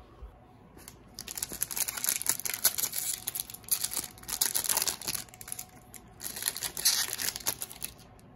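Foil trading-card pack wrapper being torn open and crinkled by hand, a crackling that starts about a second in and goes on in uneven bursts.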